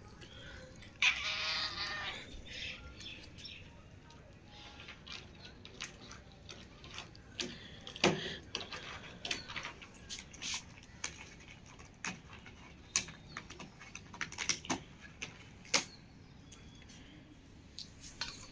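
Cats feeding: scattered sharp clicks and taps throughout, with one short animal call lasting about a second, about a second in.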